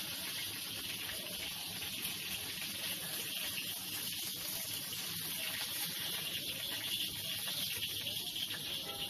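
Chicken pieces frying in hot oil in a wok, a steady sizzling hiss, with light scrapes of a metal slotted spatula as the pieces are lifted out.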